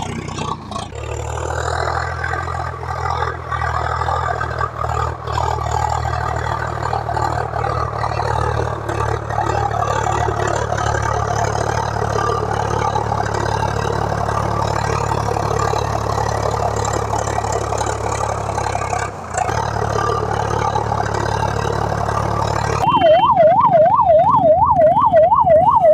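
RC car's electric motor and gears running steadily with a constant low hum. In the last few seconds a loud electronic siren starts, wailing up and down about twice a second.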